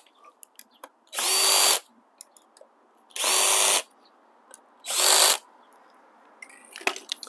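Cordless drill driving the handlebar stem clamp bolts on a bicycle in three short bursts about two seconds apart, its motor whining up to speed each time; the bolts are only snugged with the drill, not fully tightened. A few light clicks near the end.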